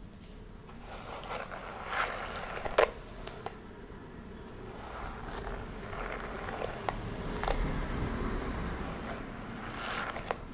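Close-miked rustling of long hair being combed and handled, swelling and fading, with a few sharp clicks scattered through it, the loudest about three seconds in.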